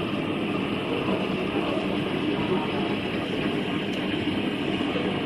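Steady background noise of a restaurant dining room: an even, continuous rumble and hiss with no distinct events.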